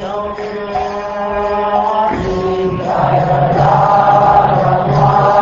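Devotional chanting with musical accompaniment: long held sung notes over a steady low drone, shifting pitch about two and three seconds in and growing louder.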